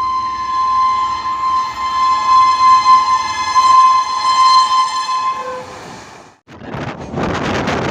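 Train horn sounding one long steady blast for about five seconds, then cutting off. After a brief moment of silence, a loud rushing noise like wind on the microphone starts.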